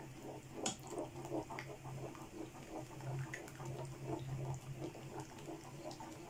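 A metal spoon stirring hot milk in a pan while custard mixture is poured in: faint, quick sloshing and scraping strokes, a few a second. A steady low hum runs underneath.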